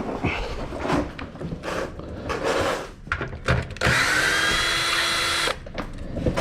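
Clattering and scraping of hand work on the car's underside. About four seconds in, a power driver runs steadily for about a second and a half, spinning out a 10 mm fastener of the underbody plate.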